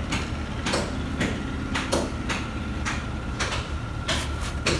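Irregular sharp knocks and clanks, about two or three a second at times, over a steady low hum of workshop background.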